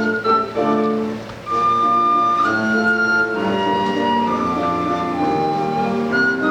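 Sopilka, a Ukrainian wooden fipple flute, playing a waltz melody with grand piano accompaniment. Short chords come first, then after a brief lull about a second and a half in the sopilka holds long, steady melody notes over the piano.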